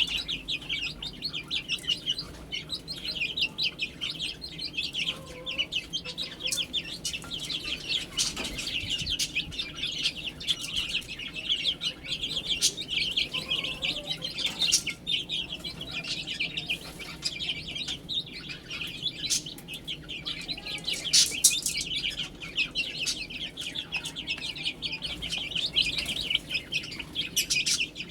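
A brood of chicks peeping continuously, many short high chirps overlapping, with a few sharp clicks among them.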